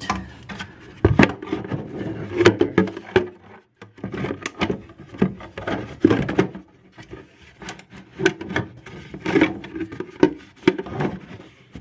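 Irregular clicks, knocks and rubbing of hands working the plastic water-supply nut under a toilet tank, unscrewing it by hand.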